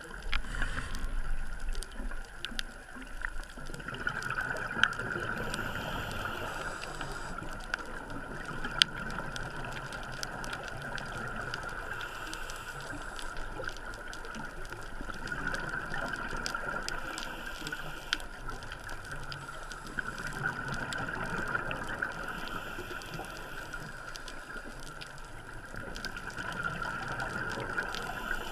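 Underwater ambience from a diver's camera: scuba breathing and exhaled bubbles gurgling, swelling and fading in slow cycles every few seconds, with scattered sharp clicks.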